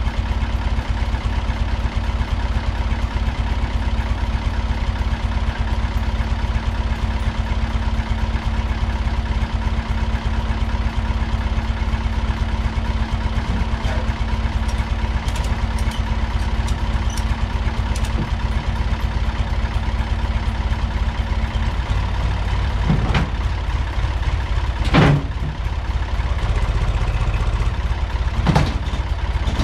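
Yellow tractor-loader's engine running at a steady idle. In the last several seconds its note changes, and a few sharp metallic clanks and bangs come, about three times.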